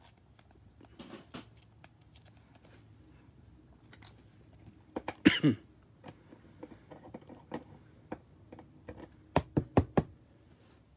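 Basketball trading cards being handled and set down on a table: soft taps and slides, a louder burst of handling noise about five seconds in, and a quick run of four sharp knocks near the end.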